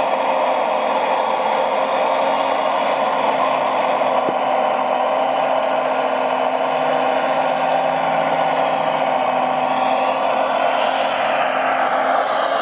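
Radio-controlled model vehicle machinery running steadily: motor and gear whirring with an even hum. A whine falls in pitch near the end as a motor slows.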